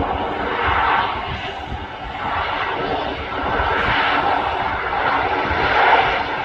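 Learjet 60XR's twin Pratt & Whitney Canada PW305A turbofan engines running: a steady jet rush with whining tones, swelling and easing in loudness a few times.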